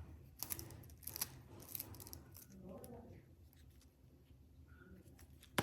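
Hand tools working on a smartphone: a few short, sharp clicks and scrapes on small hard parts, one cluster about a second in and another near the end.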